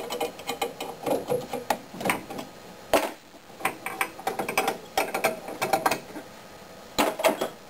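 Steel double flare tool being opened up by hand: small metallic clicks and rattles as the forcing screw is backed off, the flaring bar loosened and the yoke lifted off, with a sharper knock about three seconds in and another near the end.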